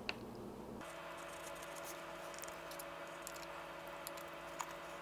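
Fingers fitting the small screw into the visor pivot clamp on a motorcycle helmet shell: faint light clicks and scratches of small parts on hard plastic, with a single click at the start and another late. A faint steady hum sets in about a second in.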